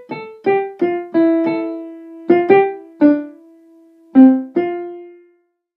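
Piano-like keyboard music: a simple melody of single struck notes, each ringing and fading, that stops a little over five seconds in.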